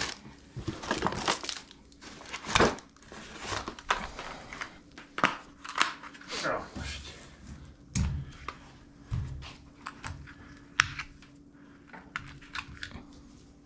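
Hand tools being taken out of a soft fabric tool bag and set down on a table: irregular clinks and knocks of metal tools, with rustling of the bag and its paper wrapping.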